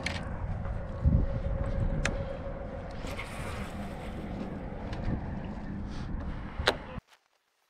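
Wind buffeting the microphone as a steady low rumble, with a few sharp clicks and steps on dry, stony dirt. The sound cuts off suddenly about seven seconds in.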